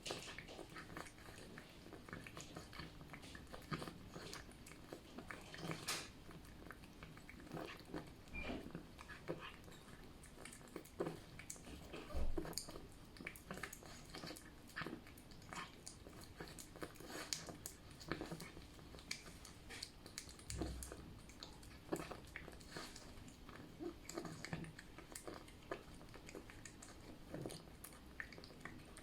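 A cat eating wet food in jelly: irregular, wet chewing and smacking clicks. Two dull low thumps break in, the louder about twelve seconds in.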